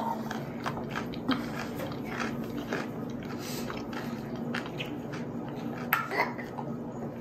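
A baby sipping water through the straw of a plastic sippy cup: small wet clicks and mouth noises, with a louder click about six seconds in, over a steady low hum.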